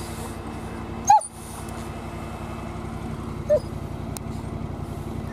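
Engine of a side-by-side UTV fitted with snow tracks running steadily while it works through deep snow. A dog gives a short high yip about a second in and a fainter one a couple of seconds later.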